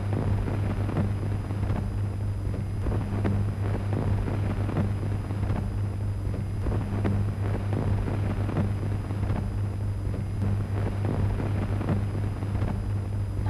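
Old film soundtrack noise between lines of dialogue: a steady low mains-type hum under constant hiss, with irregular crackles and pops from the worn optical print.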